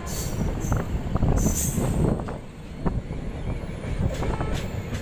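Moving passenger train heard from the coach doorway: a steady rumble of the wheels on the rails with wind on the microphone, short high-pitched wheel squeals in about the first two seconds, and a few sharp knocks over the rail joints in the second half.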